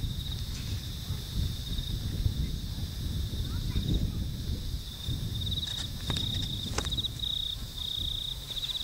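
Crickets chirping in pulsed trills, stronger in the second half, over a steady low rumble. A few short clicks come about two-thirds of the way in.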